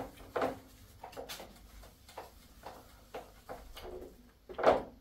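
Whiteboard eraser wiping a drawing off the board in a series of short, irregular rubbing swipes, the loudest near the end.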